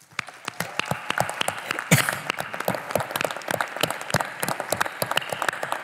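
A large audience applauding, with dense clapping that starts abruptly and keeps going. One single louder clap stands out about two seconds in.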